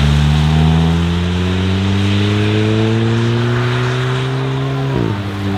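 Hyundai i30 N's turbocharged four-cylinder engine accelerating hard, its note climbing steadily through one gear for about five seconds, then dropping sharply near the end at an upshift.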